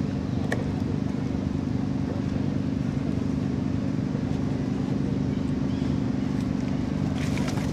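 Steady low hum of an idling engine, unchanging throughout, with a few sharp clicks and rustles near the end.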